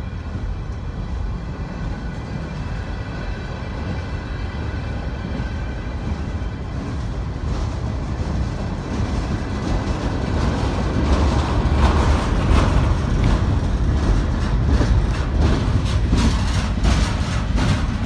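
Freight train of flatcars carrying waste containers rolling past close by: a steady rumble of wheels on rail. It grows louder about ten seconds in, with a run of clicks and clacks as the wheels pass.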